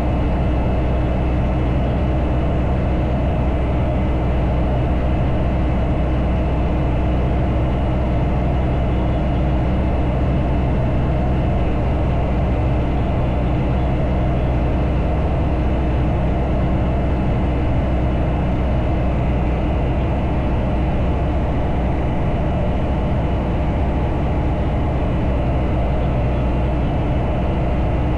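Bristell Classic light aircraft's piston engine and propeller running steadily in cruise, a constant low drone with no change in pitch.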